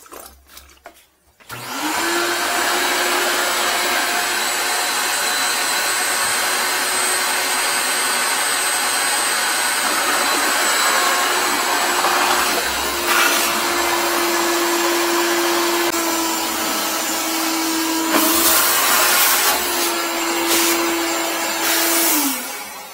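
Wet-and-dry vacuum switched on about a second and a half in, its motor running loud and steady with a whine. The hose is sucking at a toilet drain to pull out a lodged disposable contact-lens case. The pitch shifts a few times, with louder rushing surges around the middle and again later, and the motor winds down just before the end.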